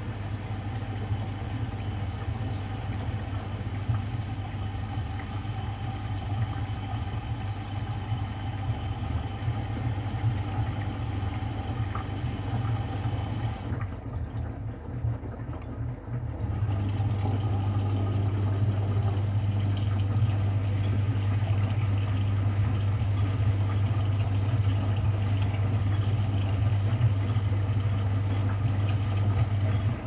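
Bosch front-loading washing machine on a 90 °C drum-cleaning wash, its drum tumbling foamy water that sloshes over a steady motor hum. About halfway there is a short lull, after which the hum is louder.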